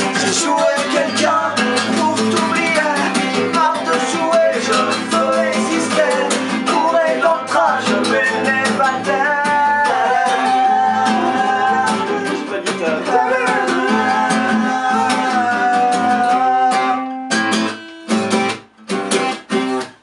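Acoustic guitar strummed with a man singing over it, holding two long notes around the middle. Near the end the strumming breaks into short separate strokes with brief gaps between them.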